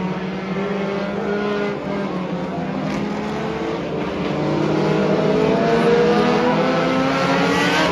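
Engines of several figure-8 race cars running on the track at once, with overlapping engine notes. About four seconds in it grows louder as at least one car accelerates, its pitch rising.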